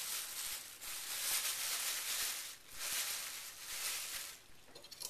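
Plastic bag of tapioca powder rustling and crinkling as it is handled over the mixing jug, in three long surges.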